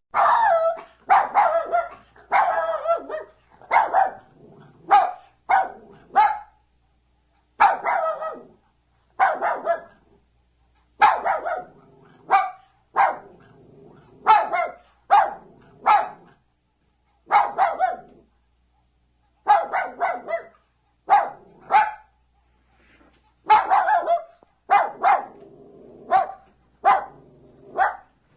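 A dog barking over and over, with short barks coming in quick runs separated by brief pauses.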